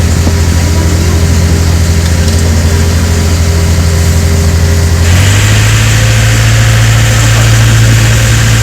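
Ferry boat's twin engines running with a steady low drone. About five seconds in, the pitch steps up and the sound grows brighter as the engines are throttled up.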